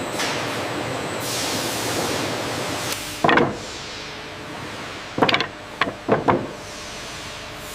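Steady sawmill machine noise, then loud wooden knocks: one a little over three seconds in and a quick run of four about five to six and a half seconds in, as lumber boards bang against each other or against the conveyor.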